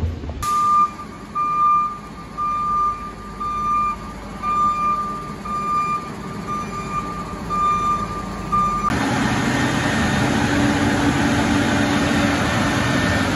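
Self-propelled crop sprayer backing up: its backup alarm beeps about once a second over the engine running. About nine seconds in, the sound switches to the engine running steadily and louder, with a hissing haze.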